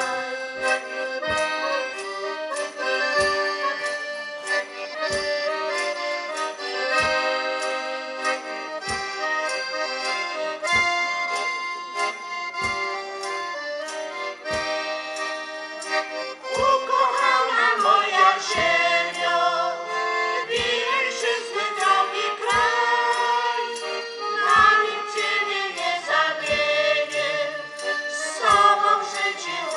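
Polish folk band playing: an accordion carries the tune with a low drum beat about every two seconds. Women's voices join in singing about halfway through.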